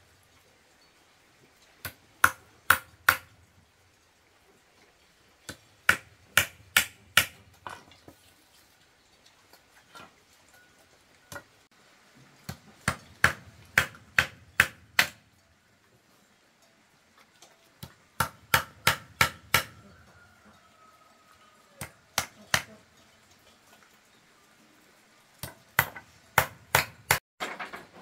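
Short bursts of sharp blows on wood, two to six strikes at a time at about three a second, with pauses of a few seconds between bursts.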